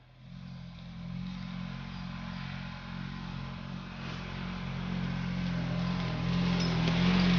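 Polaris RZR 900 side-by-side's twin-cylinder engine running steadily under load while towing a disc harrow, growing steadily louder as the vehicle approaches.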